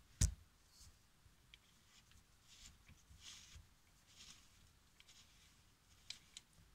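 Handling noise from the phone that is filming: one sharp knock about a quarter second in, then faint soft rustling and a couple of light clicks near the end.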